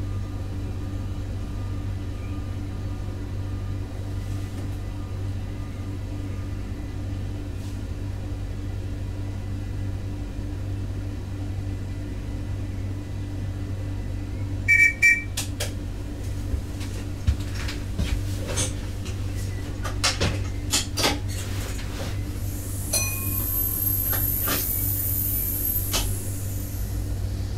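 Stadler GTW 2/6 diesel multiple unit running, heard from the driver's cab as a steady low drone. About halfway a short two-pitch electronic beep sounds, then scattered clicks, and near the end a high-pitched squeal rises and fades over about three seconds.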